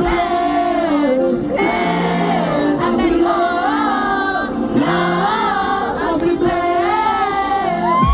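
Live pop music with a sung melody over a steady backing track: held, wavering vocal notes in short phrases.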